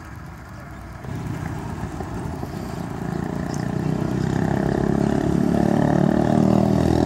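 An engine running, growing steadily louder from about a second in.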